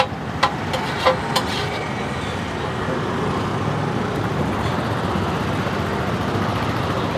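Steady hum of road traffic, with a few sharp metallic clinks of steel serving ladles and plates in the first second and a half while rice is dished out.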